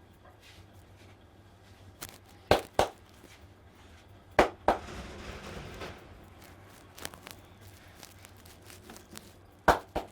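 Hands slapping on the body during a head and back massage: three pairs of sharp slaps, each pair in quick succession. A brief rubbing hiss follows the second pair.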